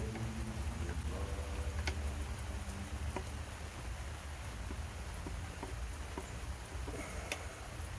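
Scattered light clicks and taps of engine parts and tools being handled as the intake manifold is worked off, about a handful of sharp ticks over a steady low rumble.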